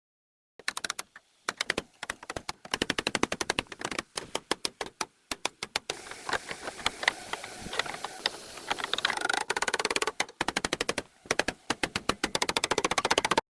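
A rapid, uneven series of sharp knocks, several a second in bursts, as of a tool striking metal.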